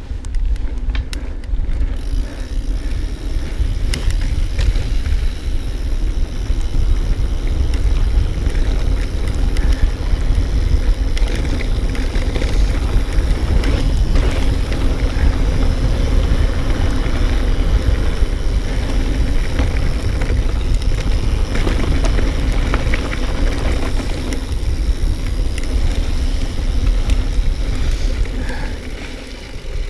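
Mountain bike riding along a dirt and mud trail: a steady low rumble of tyres and wind on the rider-mounted camera, with light clicks and rattles from the bike over the bumps. It dies down near the end.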